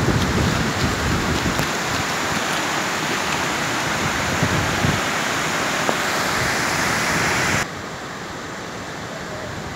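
Water rushing over a reservoir dam's spillway: a shallow sheet of overflow running across the crest and splashing down the side after heavy rain. There is low wind rumble on the microphone in the first couple of seconds, and near the end the rush drops suddenly to a softer level.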